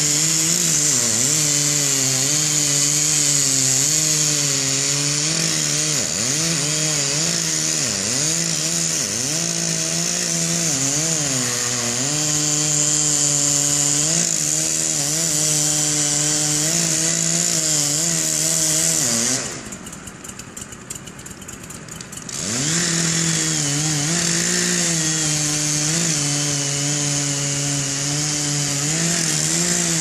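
Gasoline chainsaw running at high speed while cutting. Its pitch sags again and again as it bogs down in the wood, then picks back up. About two-thirds of the way through it falls quiet for about three seconds, then revs back up and carries on cutting.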